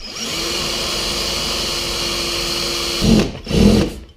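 Power drill spinning up and running at a steady pitch, stopping about three seconds in, followed by two short loud bursts.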